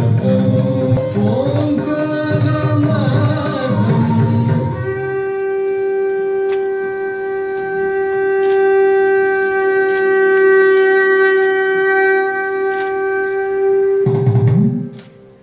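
Mohiniattam dance accompaniment music: a gliding, ornamented melody, then a single long steady note on a wind instrument held for about nine seconds. It breaks off near the end.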